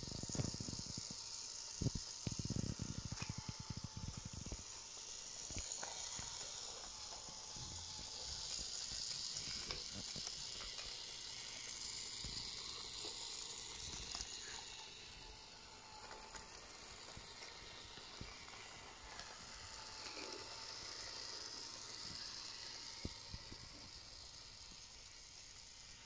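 Battery-powered toy locomotive pulling a wagon along wooden track: a small electric motor whirs steadily while the wheels click and rattle over the track, with the clicking busiest in the first few seconds and scattered after.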